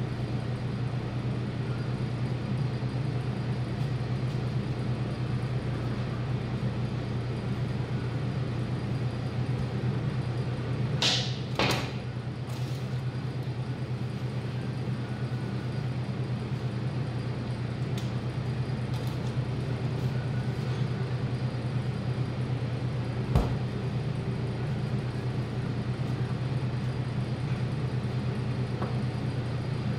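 Steady low machine hum throughout, with two short noisy scrapes about eleven and twelve seconds in and a single sharp knock about twenty-three seconds in.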